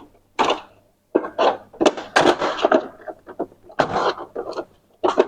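Plastic printer housing panels being handled and fitted back into place: irregular knocks, clicks and rattles.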